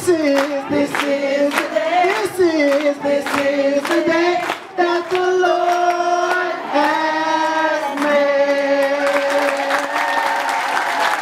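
A group of voices singing together in unison, holding long notes, with hands clapping a steady beat.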